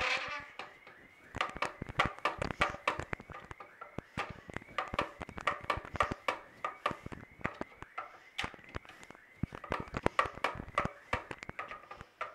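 Wooden rolling pin clacking and knocking on a wooden rolling board while roti dough is rolled out: a run of sharp, uneven wooden taps, several a second.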